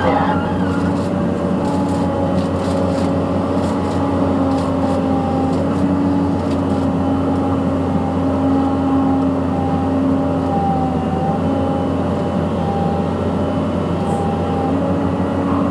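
Caterpillar 320C hydraulic excavator's diesel engine running steadily, with a few steady tones held over its hum.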